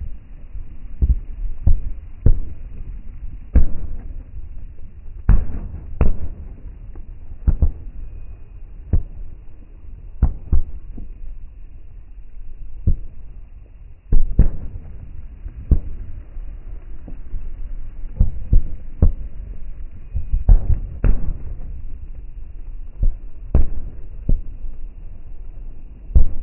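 Fireworks going off: an irregular series of loud, sharp bangs, roughly one every second, some coming in quick pairs, each with a deep boom and a short rumble after it.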